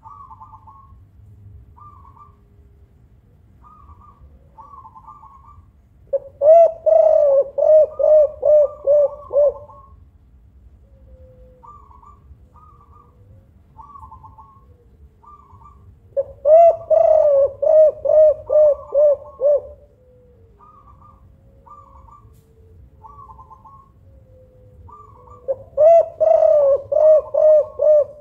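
Spotted dove (tekukur) cooing loudly in three bouts, each a quick run of repeated low coo notes lasting three to four seconds, about ten seconds apart. Fainter short, higher calls repeat about once a second between the bouts.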